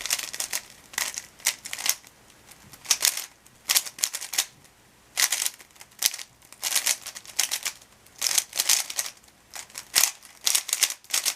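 A speedcube being turned fast by hand during a timed solve: rapid plastic clicking and clacking in bursts of turns, separated by brief pauses.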